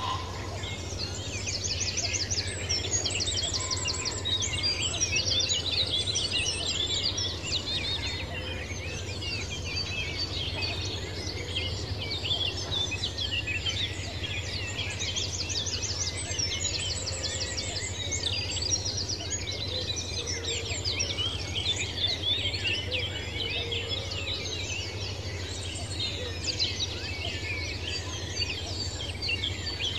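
Dense chorus of many wild birds chirping and singing at once, with rapid trills breaking out every few seconds, over a steady low hum.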